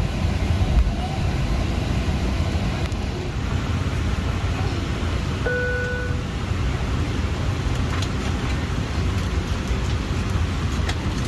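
Steady low rumble inside the cabin of a Boeing 737-800 being towed to the gate by a tug with its engines off, with one short beep about five and a half seconds in.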